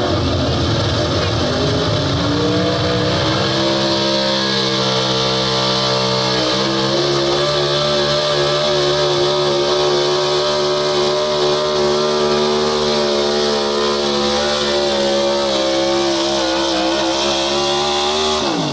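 Pro stock 4x4 pulling truck's engine at full throttle under the load of a pull. The pitch climbs at the launch, holds high and steady through the run, then drops sharply at the very end as the throttle is lifted.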